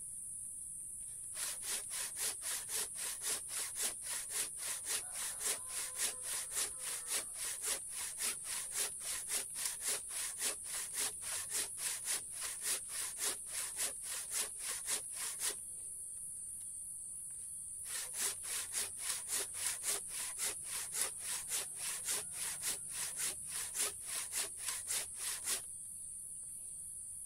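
Handsaw cutting through a block of very hard mangosteen wood: rasping back-and-forth strokes in a quick, even rhythm, pausing for a couple of seconds midway, then resuming until shortly before the end.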